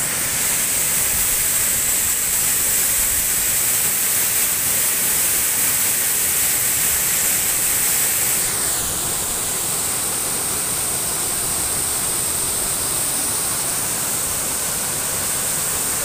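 Waterfall pouring over rock ledges into its plunge pool: a steady, dense rush of falling water, dipping slightly in loudness about halfway through.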